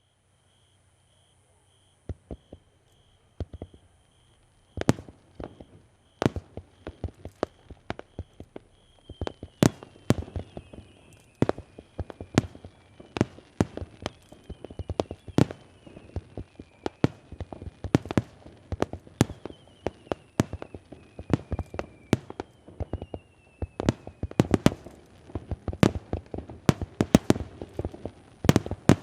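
Fireworks display: aerial shells bursting with sharp bangs, a few at first and then a fast, dense barrage of several a second. Through the middle, whistling tones fall in pitch among the bangs.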